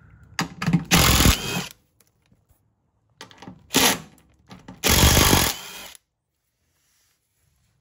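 A power tool spinning in three short bursts of about a second each, backing out the last three 10 mm bolts holding the car's underside shield.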